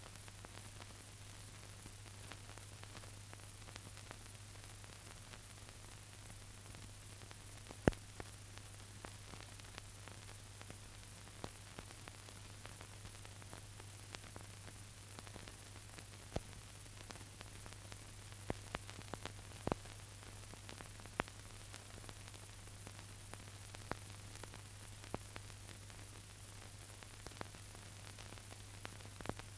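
Surface noise of an early 1930s sound-film track: a steady hiss and low hum, broken by scattered clicks and pops, the loudest about eight seconds in.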